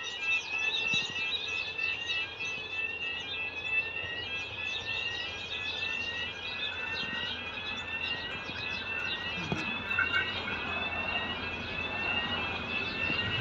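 Diesel-electric locomotives approaching at a distance, a low rumble that slowly grows, under a steady run of rising chirping calls about once a second. The locomotive horn starts right at the end.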